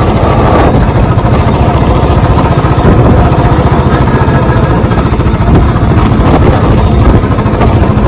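Royal Enfield Bullet's single-cylinder engine running steadily as the motorcycle is ridden along the road.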